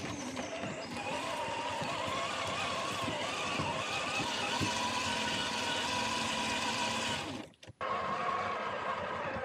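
RGT Intruder RC crawler's electric motor and gearbox whining as it drives, the pitch wavering up and down with the throttle. Near the end the sound cuts out for a moment, then the whine picks up again.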